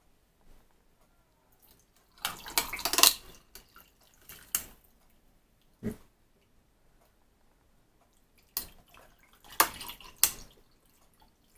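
Juice poured from a plastic jug over ice cubes into two glasses, in two spells of splashing and trickling, with a few short clinks and knocks between.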